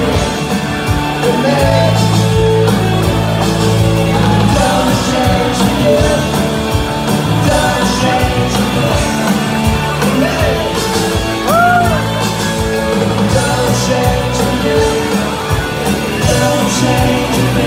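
Live rock band playing loud and amplified, with electric guitars and a singer, heard from close to the stage.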